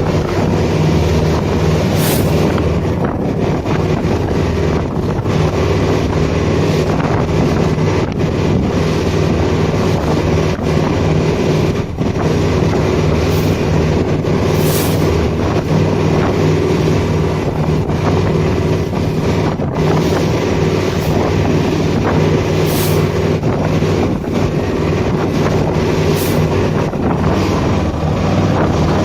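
Motorboat engine running steadily at cruising speed, with wind buffeting the microphone.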